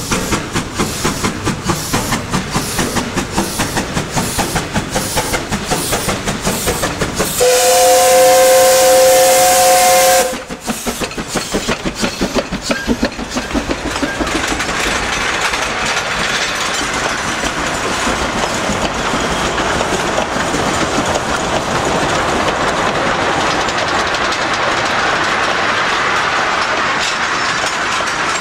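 A narrow-gauge steam locomotive passes hauling loaded coal wagons, its exhaust beating in a steady rhythm. About a quarter of the way in the steam whistle sounds one loud blast of about three seconds, a chord of several tones. After it the coal wagons roll past with a steady clickety-clack of wheels on the rails.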